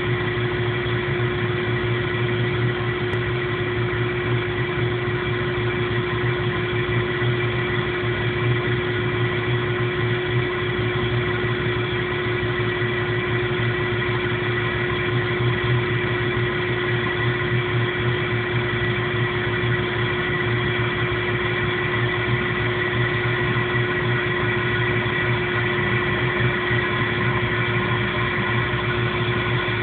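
1997 Jeep Cherokee engine idling roughly, with a steady, unchanging hum and whine and a low, uneven flutter. The owner does not know the cause of the rough running.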